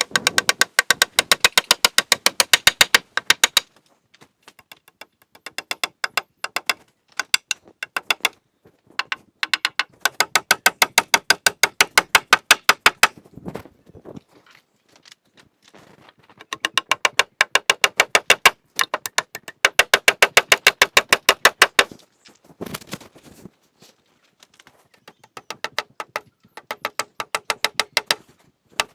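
Rapid, evenly spaced sharp clicking, about nine clicks a second, in runs of a few seconds with short pauses between them.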